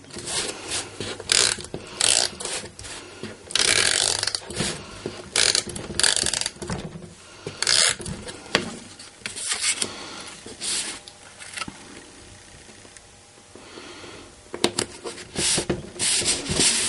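Cardstock pieces being handled, slid and rubbed down, in a run of short scraping, rustling strokes with a quieter stretch about two-thirds through.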